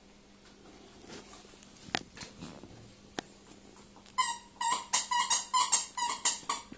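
A dog's squeaky toy being chewed, giving a rapid run of about ten short squeaks over two and a half seconds, starting about four seconds in, after a couple of light knocks.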